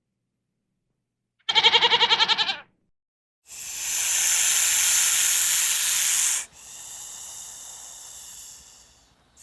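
A goat bleating once, a short quavering call, followed by a long loud hiss and then a quieter, fading hiss.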